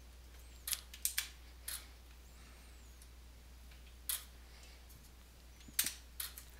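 Buttons clicking on a Behringer X-Touch Compact MIDI control surface as it is operated by hand: a scattering of short, sharp clicks, a few in the first two seconds, one in the middle and a quick cluster near the end.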